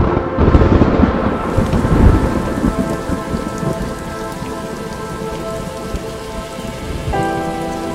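A loud rumble of thunder in the first two or three seconds, then steady rain falling and splashing on wet pavement and puddles.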